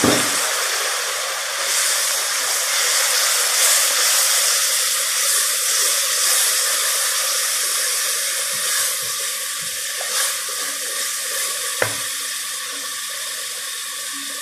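Chopped tomatoes sizzling in hot oil with garlic and spices, stirred with a wooden spoon; the steady sizzle slowly dies down, with one sharp knock of the spoon on the pot about twelve seconds in.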